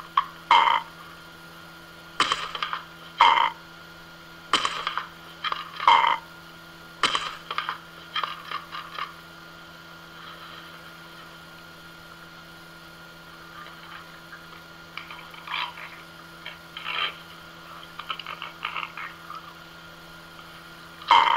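An Amazon parrot's harsh, croaky squawks in short bursts about every second, softer and more scattered in the second half, over a steady hum.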